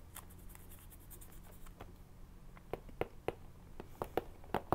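Soft handling sounds of a cardboard box set and its book: light scattered clicks, taps and paper scrapes, growing more frequent about halfway through.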